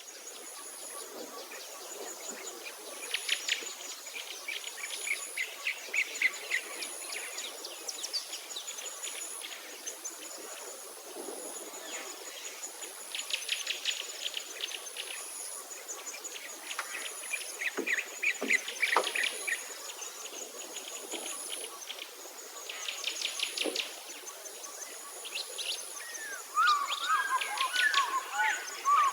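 Small birds chirping in fast, repeated rattling trills, with a faint high note repeating steadily. A louder, warbling song comes in near the end.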